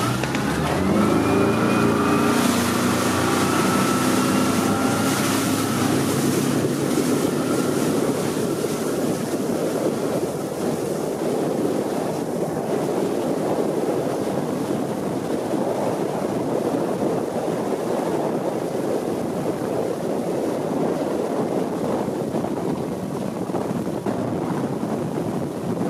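Mercury F150 outboard accelerating hard from low speed, its engine note climbing over the first several seconds. Then a steady rush of wind and water takes over as the boat runs flat out, the engine buried beneath it.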